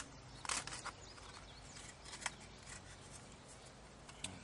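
Thin aluminium flashing windscreen being handled and set in place around a small alcohol stove: a few faint sharp metallic clicks and crinkles, a quick cluster about half a second in and single ones a little after two seconds and near the end.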